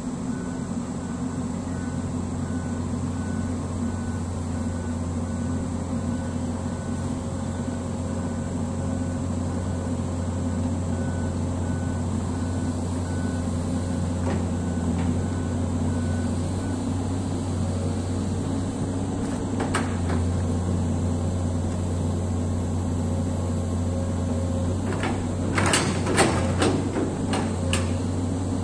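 Komatsu PC200-8 amphibious excavator's diesel engine running steadily under hydraulic load while the long arm swings the bucket into a trench. A faint rapid beeping runs through the first half, and near the end comes a quick cluster of sharp knocks as the bucket works in the peat.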